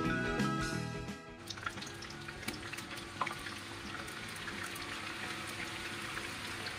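Background music for about the first second and a half, then beef koftas deep-frying in medium-hot oil: a steady sizzle with scattered crackles and pops.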